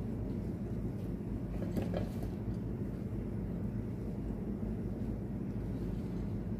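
Steady low background rumble, with a faint brief tap about two seconds in.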